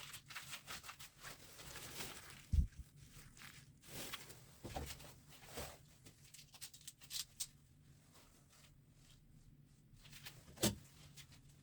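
Hand work on dismantled electric fan motors: scattered small clicks and rustling, with two dull knocks, one about two and a half seconds in and a louder one near the end.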